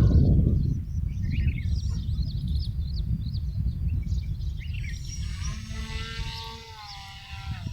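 Strong wind buffeting the microphone with a low rumble, easing toward the end. Birds chirp over it in the first few seconds. From about five seconds in, a drawn-out pitched sound slides slowly down.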